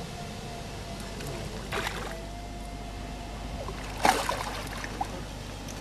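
Water splashing twice in short bursts, the louder about four seconds in, over a faint steady tone that stops just before it.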